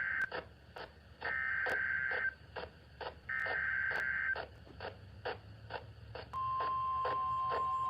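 Emergency Alert System SAME header: raspy, warbling data bursts about a second long, two complete ones after the tail of the first, which encode the flood-warning alert. About six seconds in, the steady single-tone NOAA Weather Radio attention signal starts, announcing that a voice message follows. Faint regular clicks run underneath, about two a second.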